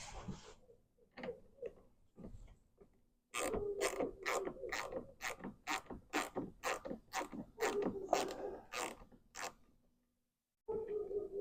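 A ratcheting driver clicking as a screw is turned out: a steady run of sharp clicks, about three to four a second, lasting some six seconds, after a few scattered clicks and knocks.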